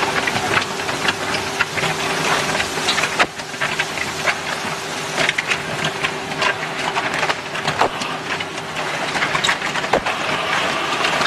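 Twin-shaft concrete mixer running: a steady hum under constant irregular clattering and knocking.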